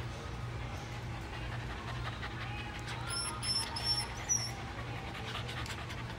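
Miniature schnauzers making small dog sounds over a steady low hum, with four short high beeps about three seconds in, the last one rising.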